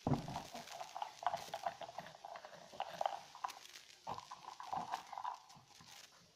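Hands handling a clear plastic cup on a table right by the microphone: a knock at the start, then a run of quick, irregular clicks and taps.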